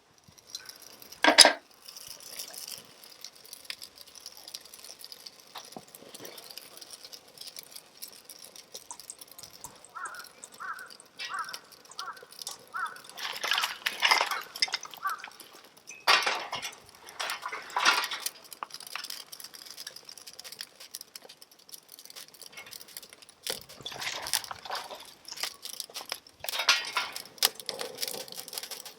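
A fire steel (ferrocerium rod) scraped hard with a striker several times, each stroke a short harsh scrape, as sparks are thrown into dry grass tinder to light a campfire. There is a sharp click early on and a short run of light ticks before the scraping strokes.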